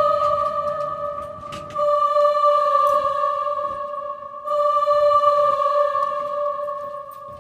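Spooky Halloween sound-effect music: one high sustained note, struck three times, each starting loud and fading away over about two and a half seconds.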